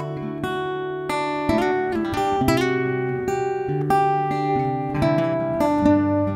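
Background music played on acoustic guitar, a melody of notes plucked one after another.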